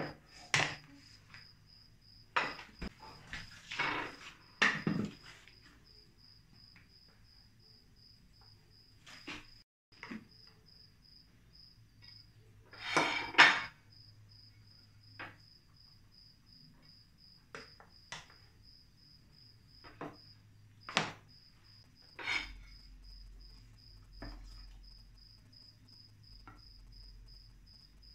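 A serving spoon scraping and knocking against a nonstick pot and a ceramic plate as cooked rice and bean stew are dished out, in scattered clatters, the loudest about 13 seconds in. A steady high-pitched pulsing chirp continues in the background.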